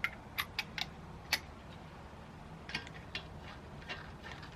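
Light, sharp clicks and ticks of acorn lug nuts being handled and started onto the wheel studs, about nine irregular clicks in two loose clusters.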